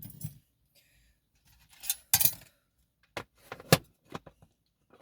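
Small metal clicks and clinks of a lock and picking tools being handled, several separate taps with two sharper knocks about two seconds and three and a half seconds in.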